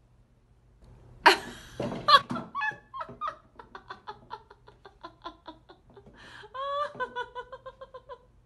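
A woman laughing hard in a rapid string of short, breathless giggles, starting with a sharp outburst about a second in.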